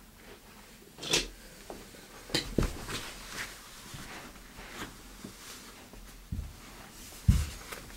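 A few scattered light knocks and clicks in a small room, with the loudest, a low thump, near the end.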